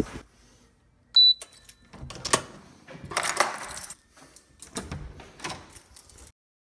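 A short, high electronic beep about a second in, then clicks, a clack and rustling as a lever-handled door is worked and passed through, with handling and footstep noise. The sound cuts off suddenly near the end.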